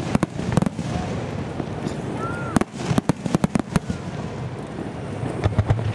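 Starmine fireworks barrage: quick volleys of sharp bangs, one just at the start, a longer run about three seconds in and another near the end, over a steady rumbling background.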